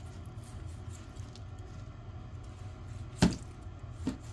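A knife cutting a grilled ribeye away from its bone on a plastic cutting board, with one sharp knock of the blade against the board about three seconds in and a lighter one near the end, over a low steady hum.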